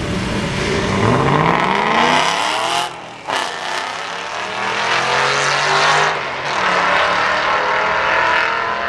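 A 1966 Sunbeam Tiger with a 347 stroker Ford V8 and a Mustang convertible launch side by side in a drag race and accelerate hard down the strip. The engine note climbs in pitch, breaks off sharply about three seconds in, then climbs again through the middle of the run.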